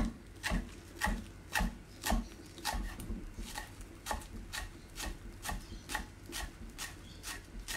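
Chef's knife chopping chives on a wooden chopping board: the blade knocks steadily against the board about twice a second.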